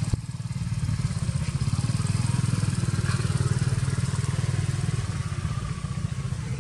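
An engine running steadily with a low, rapidly pulsing throb.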